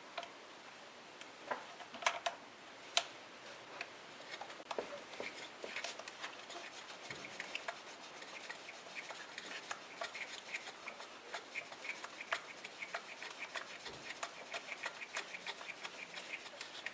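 A 10 mm socket ratchet driving the PCV valve's hold-down bolt back in: a few separate knocks at first, then a long run of quick, light clicks as the ratchet is worked back and forth.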